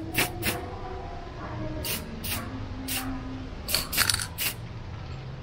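Aerosol spray paint can sprayed in a series of short quick bursts, about eight to ten brief hisses in a few seconds.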